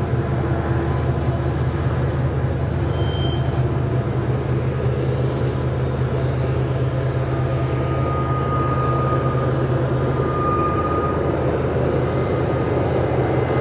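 Diesel locomotives with a whining GE unit hauling a coal train: a steady low engine drone with a thin, high whine on top that comes up more clearly about eight seconds in.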